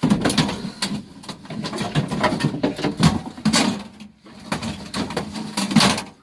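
Scrap being handled: a dense run of irregular clattering knocks and rattles, with a brief lull about four seconds in.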